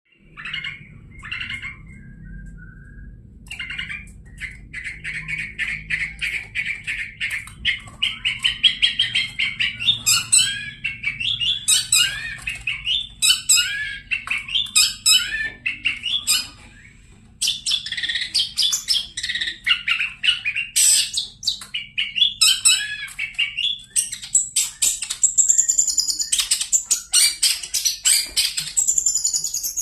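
Long-tailed shrike (pentet) singing vigorously: a long, fast, varied chattering song mixing sharp chirps and harsh squawking notes, with a short pause a little past halfway.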